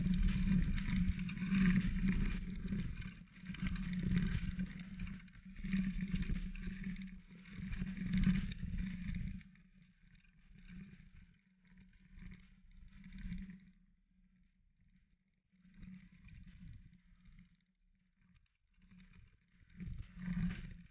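Mountain bike riding fast down a dirt trail: tyres rolling and crunching over dirt and stones, with wind buffeting the camera's microphone. It is loud and uneven for the first half, then quieter and patchy, swelling again near the end.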